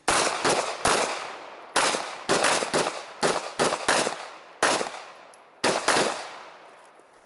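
Handgun shots fired in quick pairs and triplets, a dozen or more in all with short pauses between groups, each sharp crack ringing out and dying away; the firing stops about six seconds in.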